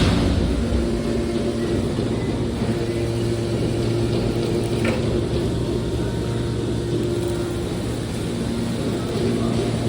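Hydraulic car baler running, a steady low mechanical hum with a short knock about halfway through.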